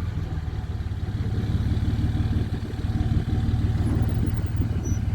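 Vehicle engine running steadily just after being started, a low even hum.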